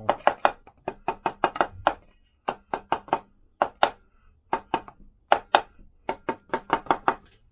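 Rapid light knocks of a wooden handle tapping a Lambretta's alloy mag flange into the crankcase, in short runs of several taps a second with brief pauses. The taps work the flange round to seat it level, because it is still sitting at an angle at the top.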